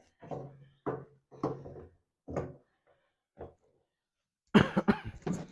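A quick cluster of sharp knocks and clacks about four and a half seconds in, from the fuel pump sending unit's top plate being pushed and tapped to seat its locating tabs in the fuel tank. Softer taps come before it.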